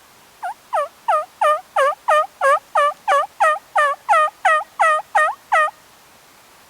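Turkey yelping: a run of about sixteen evenly spaced yelps, roughly three a second. The first yelp is softer and the rest are loud and steady.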